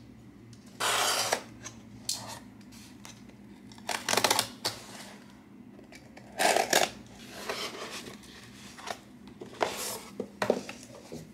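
Objects being handled and set down: four short bursts of clinking, clattering and rustling against a quiet background, about a second in, around four seconds, around six and a half seconds, and near the end.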